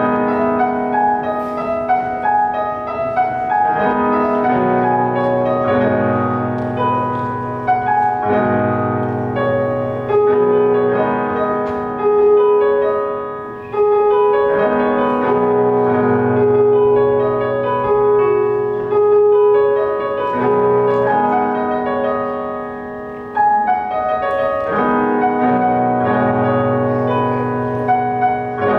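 Electronic keyboard in a piano voice played solo: a slow piece of sustained chords, with the bass changing about every two seconds and a melody on top.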